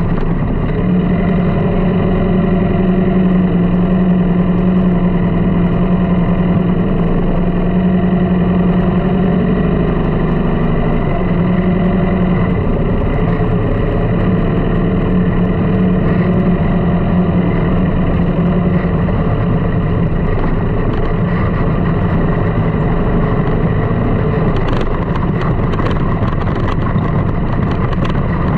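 Sand rail dune buggy's engine running steadily while driving over sand, its pitch wavering a little about ten seconds in.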